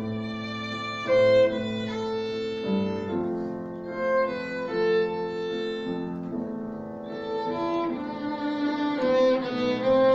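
Children's violin ensemble playing a melody together, in held bowed notes that change every half second or so.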